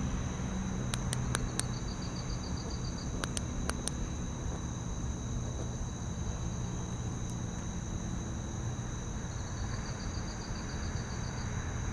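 Crickets chirring at night: two steady high-pitched tones, with a quick pulsed trill twice. A few light clicks come about a second in and again near four seconds.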